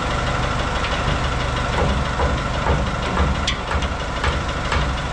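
An engine idling steadily, with a series of short sharp clicks and taps from a hand tool working an inserted tooth out of a circular sawmill blade.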